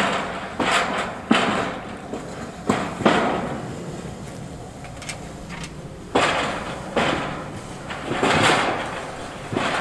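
Irregular knocks and thuds of timber-framing work, about eight in all, each with a short ringing tail, with a pause of a few seconds in the middle.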